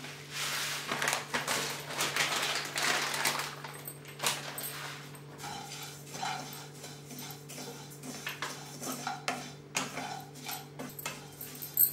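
Cumin seeds pouring from a plastic packet into a non-stick kadai, a rushing hiss for the first few seconds, then a spatula scraping and clicking against the pan as the seeds are stirred and dry-roasted.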